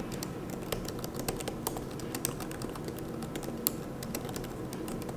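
Typing on a tablet's keyboard case: quick, irregular key clicks.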